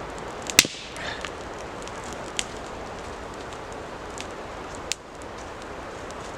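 Small campfire of damp sticks crackling: one sharp, loud pop about half a second in and a few smaller snaps later, over a steady hiss.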